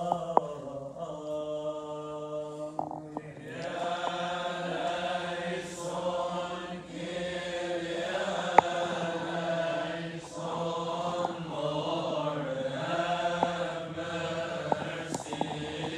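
Coptic liturgical hymn chanted in long, drawn-out sung lines with slowly bending held notes. The singing fills out with more voices about three and a half seconds in. A few sharp clicks cut through, the loudest about eight and a half seconds in.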